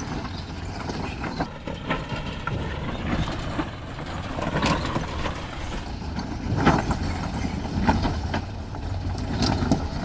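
Land Rover Discovery's engine running at low revs as it crawls slowly over loose rock, with rocks knocking and crunching under the tyres several times, the loudest knock about two-thirds of the way through.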